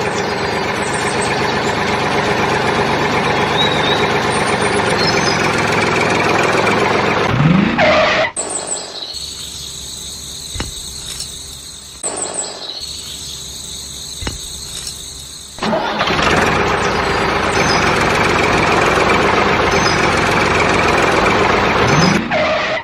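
A small motor running with a steady, noisy drone. It cuts out about eight seconds in, leaving faint tones and a few ticks, and starts again about sixteen seconds in. Short pitch sweeps come at the changes.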